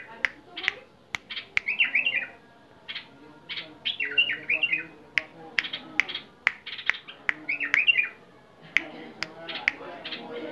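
A caged white-eared bulbul singing: short bubbling phrases of quick notes, repeated every two to three seconds, with sharp single chirps in between.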